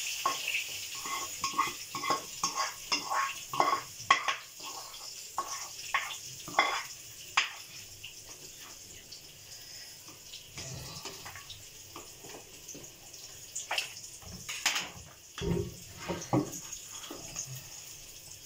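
A spoon scraping and knocking against a black non-stick kadhai as the cooked mustard-greens saag is tipped out into a bowl: a quick run of clicks and taps for the first seven seconds or so. A few scattered knocks and one dull thud follow in the second half.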